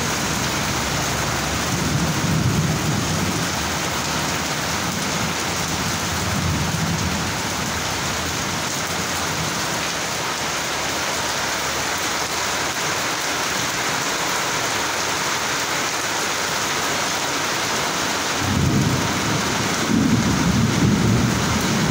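Heavy monsoon rain pouring steadily, with a low rumble swelling up a few times, strongest near the end.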